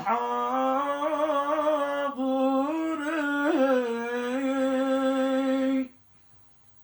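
A man singing a Yemeni madrah, a devotional chant, in long drawn-out, ornamented notes with no instruments heard. The line cuts off sharply about six seconds in.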